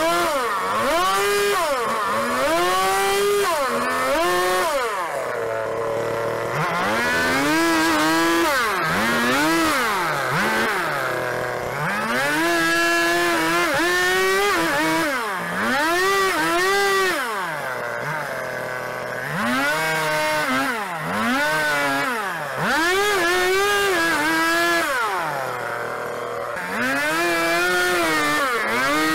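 Stihl two-stroke chainsaw plunge-cutting into a pine log to hollow out a round notch. Its engine revs up under the cut and drops back over and over, settling to idle for a few longer spells between cuts.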